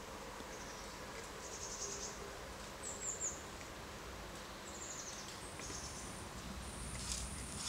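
Faint outdoor garden ambience: a few short, high, falling bird chirps, then from about two-thirds of the way through a steady, very high insect trill, over a low background rumble.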